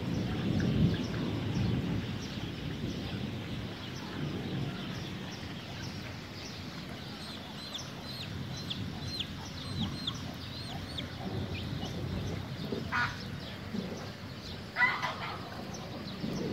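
A roll of thunder fading away over steady rain, then a small bird chirping a quick run of short high notes, and a few clucks from chickens near the end.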